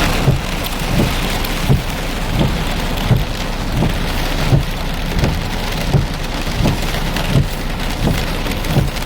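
Steady heavy rain, with a low thump repeating evenly about every three-quarters of a second.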